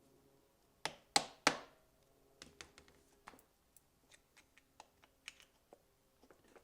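Hand tools striking and handling metal parts on a motorcycle: three sharp knocks with a short ring in quick succession about a second in, then a scatter of light clicks and taps.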